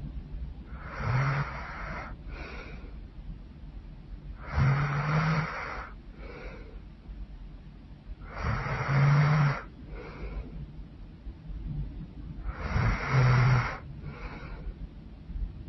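A woman snoring loudly in her sleep: four long, rasping snores with a low buzzing pitch, about every four seconds. Each is followed by a softer, shorter breath.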